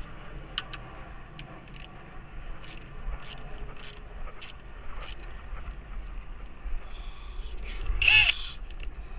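Scattered light clicks and taps of hand tools at work on the radiator fan's mounting bolts. About eight seconds in comes one loud, short, harsh cry.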